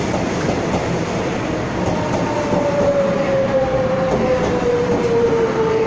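TRA EMU500 electric multiple unit running past along the platform with steady wheel-on-rail noise; from about two seconds in its motor whine falls slowly and steadily in pitch as the train slows for the station.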